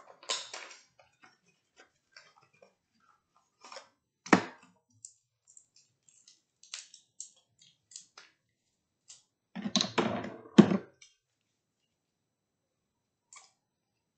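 Scattered small clicks and taps of latex-gloved hands working at the cap of a small glass bottle, with a sharp knock about four seconds in and a louder cluster of clatter around ten seconds.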